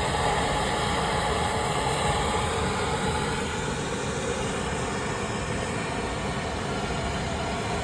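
Steady machine-like running noise with a faint hum in it.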